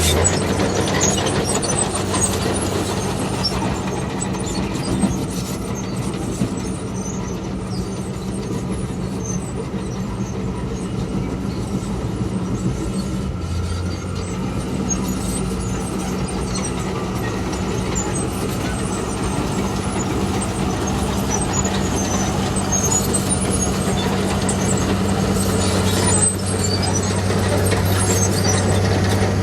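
Heavy diesel machinery engine running steadily with a low hum that grows stronger near the end.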